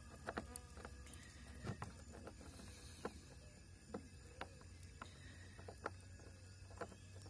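Very quiet handling: faint scattered clicks and taps of fingers working a rubber drain plug in the plastic hull of a fishing kayak.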